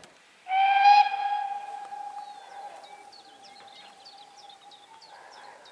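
Steam locomotive whistle giving one long blast from down the line. It is loudest as it opens and fades gradually over about four seconds, with birds chirping.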